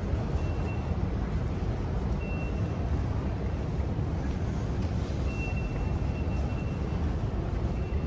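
Short high-pitched beeps from the Underground ticket barriers' card readers as passengers tap through, a few seconds apart and one longer near the middle, over the steady low rumble of the station ticket hall.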